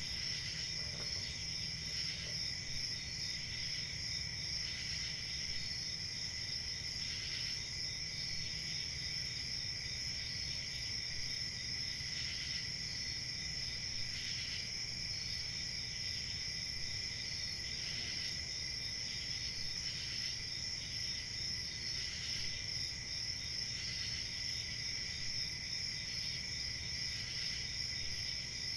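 Crickets chirping continuously: a steady, high-pitched chorus of several overlapping insects, with a quicker pulsing chirp riding on top.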